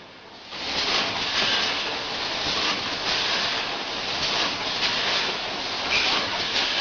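Snack food packaging machine running: a steady rattling hiss of dry snack pieces moving through its hopper and feeder, fading in over the first second.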